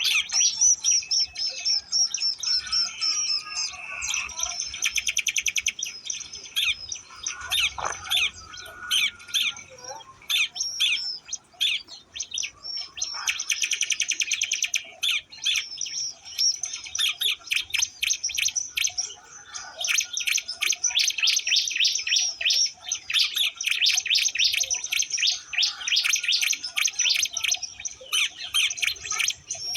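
Ciblek Lombok, a prinia, singing: rapid high chirps broken up by fast buzzy trills, nearly without pause.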